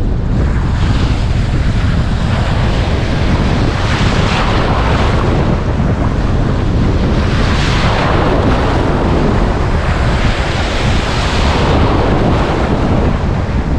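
Strong wind buffeting an action camera's microphone with a constant low rumble, over surf washing on the shore that swells up and falls back several times.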